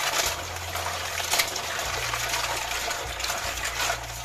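Tap water running into a basin of green mussels while hands rub and swish the shells in the water, with brief splashes: the mussels being washed.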